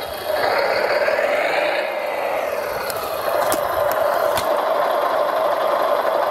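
Radio-controlled Volvo wheel loader running: a steady mechanical whine whose higher tone rises and then falls away, with a few sharp clicks about three and a half and four and a half seconds in.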